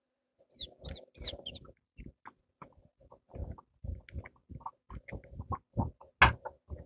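Footsteps on a wooden plank footbridge: quick knocks of shoes on the boards, about three a second, with one louder knock near the end.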